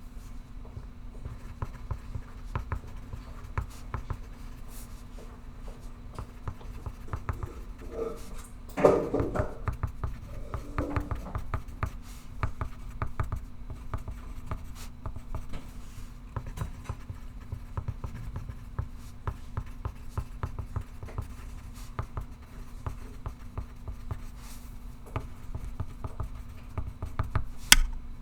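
Pencil writing on paper: a continuous run of small scratchy strokes over a steady low hum. A louder brief handling noise comes about nine seconds in, and a sharp click near the end.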